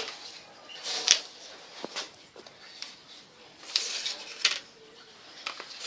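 Scattered light clicks and knocks, with soft rustling, of small objects being handled.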